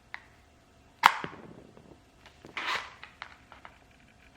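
Matches being struck against a matchbox striker: a sharp strike about a second in and a second, longer scraping strike a little before the middle of the clip, with light ticks of handling in between.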